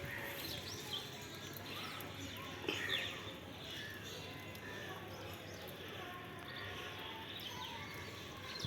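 Birds chirping in short scattered calls over a steady background hiss, with a couple of brief knocks about three seconds in.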